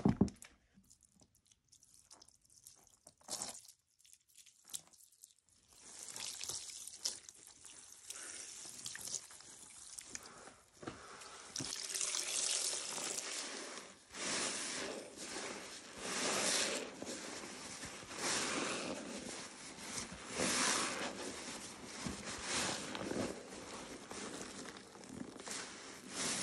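Sponges being worked and squeezed in a basin of foamy Pine-Sol and water: a few light knocks at first, then steady sloshing, and from about halfway a wet squelch that swells and fades about every two seconds as a sponge is wrung out.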